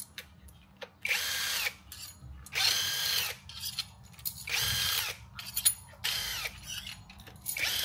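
Cordless impact wrench spinning out supercharger mounting bolts that have already been cracked loose, in five short bursts of under a second each, with light clicks of the tool and bolts in between.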